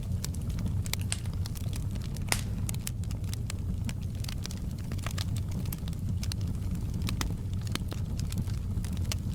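Wood fire burning with a steady low rumble and irregular sharp crackles and pops, one louder pop about two seconds in.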